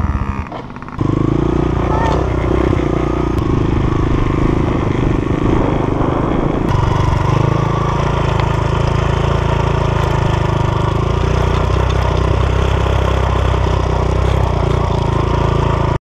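Dirt bike engine running while the bike is ridden, picked up close from a camera on the bike or rider. The level dips briefly just after the start, the engine note changes about two-thirds through, and the sound cuts off suddenly at the end.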